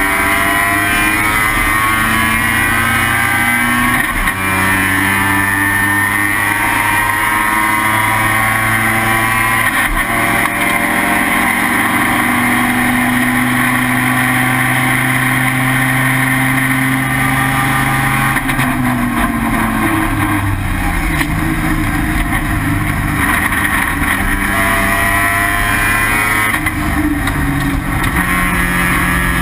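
Race car engine heard from inside the car, running hard at racing speed, most likely the Mazda RX-7 rotary of the IT7 class. Its pitch climbs through the gears with shifts about 4 and 10 seconds in, drops away under braking about two-thirds of the way through, then climbs again.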